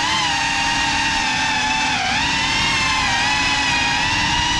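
Motors and propellers of a GEPRC Cinelog 35 cinewhoop drone on 6S whining at a fairly steady pitch in flight. The pitch dips briefly about two seconds in as the throttle eases, then comes back up.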